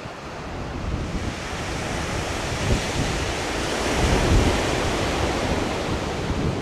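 Wind buffeting the microphone: a rushing gust with a low rumble that swells to a peak about four seconds in, then eases.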